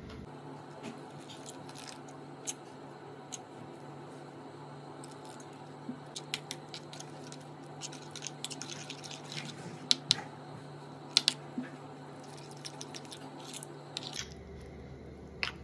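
Metal spoon stirring a thick flour-and-chilli batter in a ceramic bowl. There is wet squelching and scraping, with a few sharp clinks of the spoon against the bowl, the loudest past the middle, over a steady low hum.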